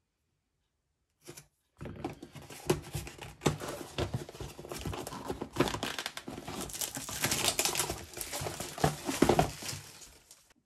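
Packaging of an RC brushless ESC and motor combo being unpacked by hand: irregular crinkling and rustling with many small clicks and knocks, starting about two seconds in.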